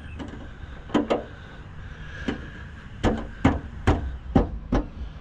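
Sharp knocks and taps as a new plastic running light housing is pushed and struck into a too-tight opening in the car's front end, about ten in all, coming quicker in the second half.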